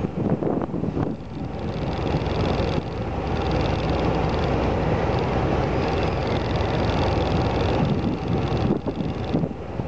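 Steady rumble of a vehicle in motion, with wind buffeting the microphone.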